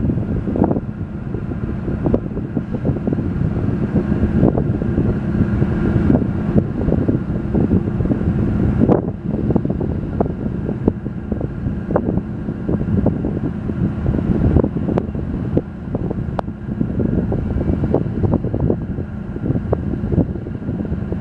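Diesel engines of the Seastreak Commodore high-speed ferry running under way as it heads out, a steady low drone, with wind buffeting the microphone in gusts.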